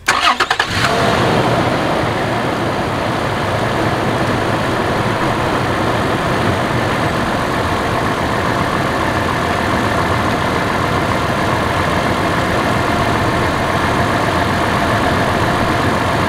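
Toyota 4Runner engine cranked by the starter for under a second, catching and settling into a steady idle.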